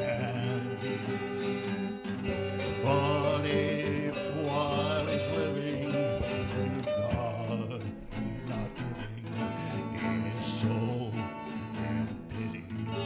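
A man singing a country gospel song, accompanying himself on a strummed acoustic guitar.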